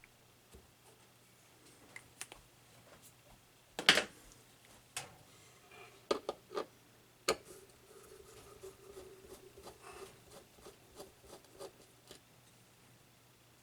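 Light clicks, taps and scraping from handling the mechanism of an opened Sony PS-LX220 turntable, with one sharper knock about four seconds in.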